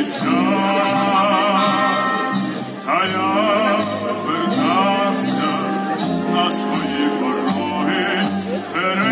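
A male soloist singing a slow song in a full operatic voice with a wide vibrato, accompanied by a wind band holding sustained chords. The phrases are separated by short breaths.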